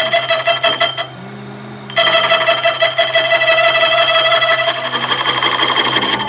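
Manual lathe cutting tool turning the rim of a spinning metal roller, ringing with a loud steady high squeal and several overtones over the lathe's low running hum. The squeal breaks off for about a second near the start and comes back abruptly as the tool bites again.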